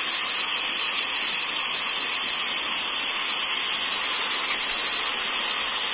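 Homemade sandblaster blasting sand under high air pressure against a steel motorcycle frame, a steady, very noisy hiss as it strips paint and body filler down to bare metal.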